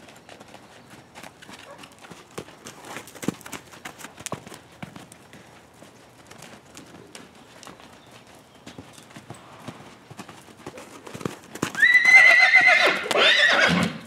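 A young stud colt's hooves thudding irregularly on loose dirt as he moves around the pen, then a loud whinny about twelve seconds in that lasts around two seconds and wavers near the end.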